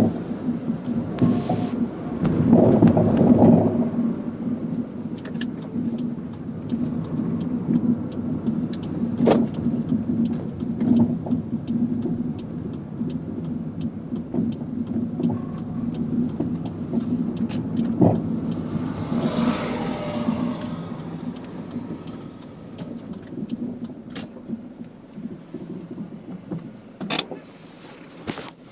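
Toyota Starlet on the move, a steady engine and road hum with heavy rumbling at first and scattered sharp knocks. The knocks fit the rear passenger-side suspension knocking over bumps, which was traced to a worn rear shock absorber.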